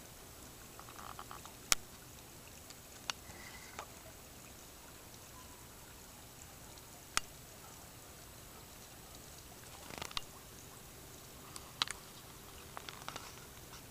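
Faint, steady trickle of water from a small drystacked rock waterfall splashing into a pond, its flow thin with one pump feeding it. Several sharp clicks come at irregular moments.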